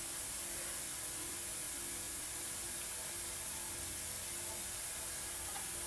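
Steady hiss of background noise with a faint low hum under it, unchanging throughout, with no distinct handling sounds standing out.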